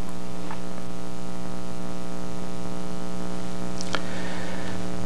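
Steady electrical mains hum with a stack of even overtones, at a constant level; a faint click about four seconds in.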